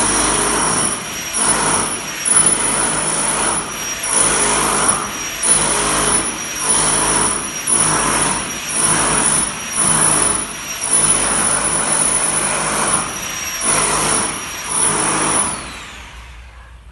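A power tool running with a high steady whine, switched on just before and cut off about a second before the end, its noise swelling and dipping roughly once a second as it works.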